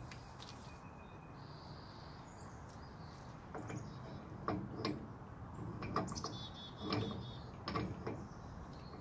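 Irregular metal clicks and clanks starting about three and a half seconds in, as a four-pin spline nut removal socket is fitted to the front hub spindle nut of a Ford F-350 and worked with a wrench. Faint bird chirps in the background.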